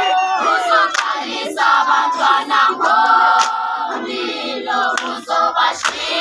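A group of girls singing a Zulu traditional dance song together, with sharp hand claps now and then.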